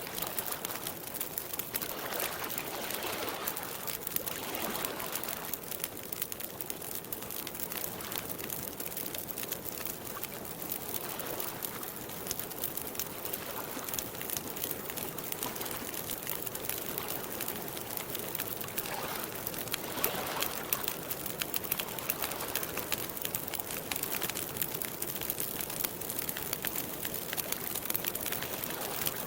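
Wood campfire crackling steadily with many small pops, over softer swelling washes of sound that come and go every few seconds.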